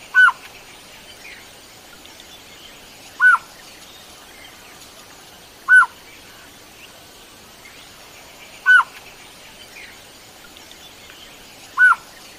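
A bird calling: five short, clear notes, each rising and then falling in pitch, repeated about every three seconds over a faint steady hiss.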